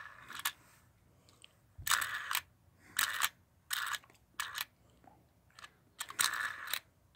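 Small plastic Happy Meal toy mechanism worked by hand, the Raven's Point portal being turned. It gives about six short clicking rattles, each under a second, with brief pauses between.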